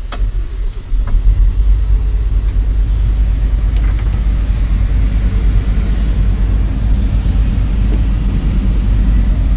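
A SANY excavator's diesel engine is running with a steady low rumble, which grows clearly louder about a second in. Two short high-pitched beeps come from the cab in the first two seconds.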